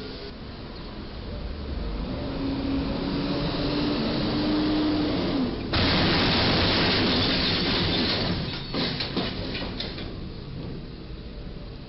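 Traffic noise at a low railway underpass, then a box truck's aluminium box roof scraping and crunching against the bridge's steel crash beam as the truck is driven too high under it, with a short run of sharp cracks and knocks about nine seconds in.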